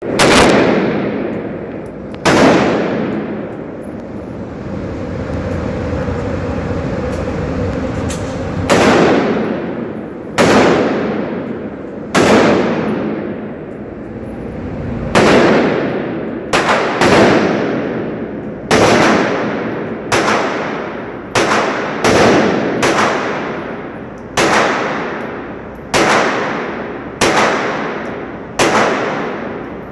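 Gunshots, about eighteen in all, each followed by a long echoing tail. After the second shot there is a gap of about six seconds; after that they come every one to two seconds, with an occasional quick double.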